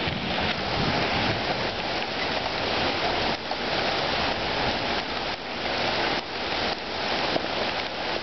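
Heavy thunderstorm downpour: dense, steady rain hiss with small swells and dips in loudness.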